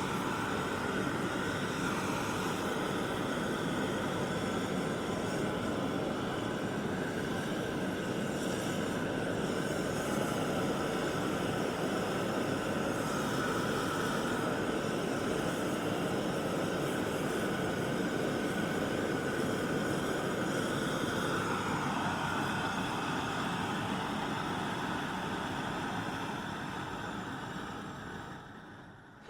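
Propane hand torch burning at full power: a steady, loud rushing hiss of the flame that dies away near the end as it is shut off.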